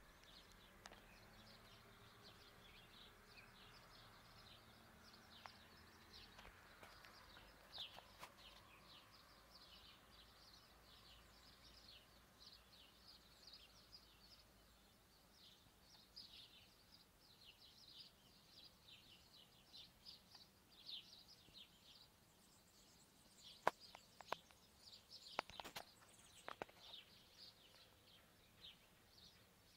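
Faint dawn chorus of small birds: many short, high chirps and calls, with a few sharp clicks late on.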